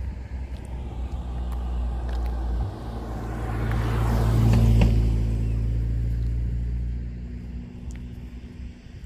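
A motor vehicle passing close by. Its engine hum and tyre noise build, are loudest four and a half to five seconds in, then fade away.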